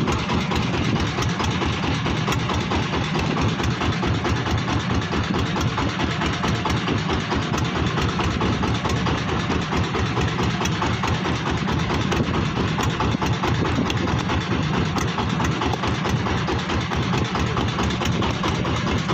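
Small fishing boat's engine running steadily at low speed, with a fast, even low throb.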